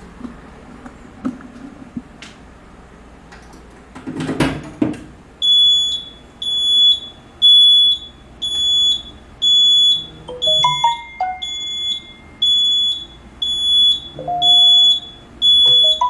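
Notifier fire alarm control panel's trouble sounder beeping, a high-pitched beep about once a second, starting about five seconds in after a short knock: the trouble signal for the panel door being opened. Smartphone alert tones chime over it about ten seconds in and again about fourteen seconds in, as the trouble text alerts arrive.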